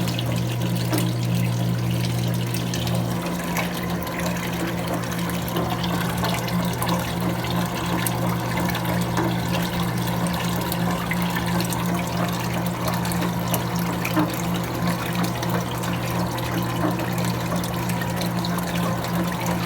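Electrolux Prosdócimo washing machine running with water flowing through it: a steady electric hum under an even rush and trickle of water, with no rhythmic agitation.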